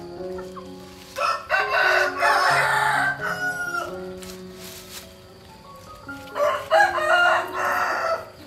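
A rooster crowing twice, each crow lasting about two seconds, over soft background music with slow held notes.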